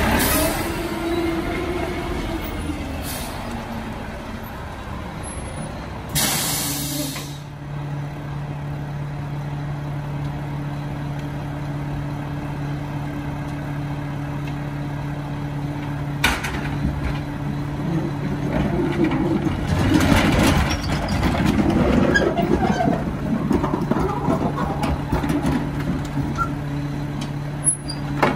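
Mack LR rear-loader garbage truck: the engine note falls in pitch over the first few seconds, an air brake lets out a short loud hiss about six seconds in, and the diesel then idles steadily. A sharp knock comes around the middle, and clattering and banging fill the last third.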